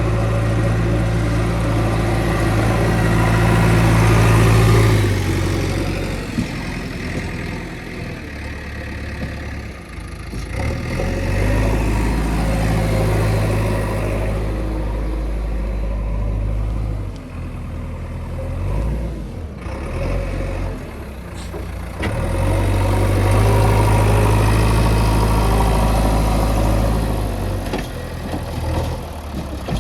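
Heavy diesel engine running. It loads up into louder stretches about every ten seconds and eases back in between.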